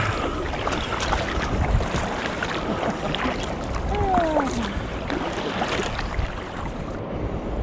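Sea water splashing and lapping around an inflatable kayak as paddles dip, with wind on the microphone. A brief falling vocal sound about four seconds in.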